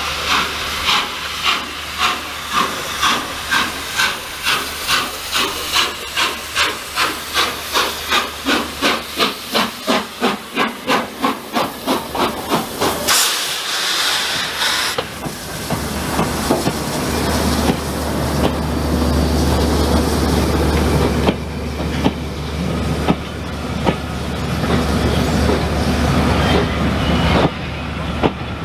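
Peppercorn A1 Pacific steam locomotive 60163 Tornado pulling away with cylinder drain cocks open: rhythmic hissing exhaust beats that quicken steadily as it gathers speed. About halfway through a loud burst of steam hiss passes close by. It is followed by the steady rumble of coaches rolling past, with occasional wheel clicks.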